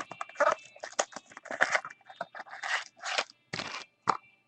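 Trading cards and their packaging being handled: a run of irregular scraping and rustling strokes as card stock slides and rubs.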